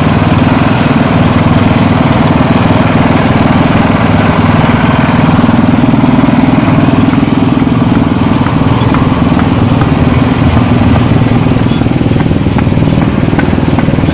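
A small engine running steadily at a constant speed, with faint, regular light ticking through the first half.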